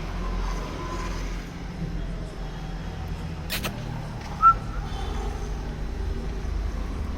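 Steady low rumble of a vehicle engine or road traffic, with a sharp click about three and a half seconds in and a brief high squeak about a second later.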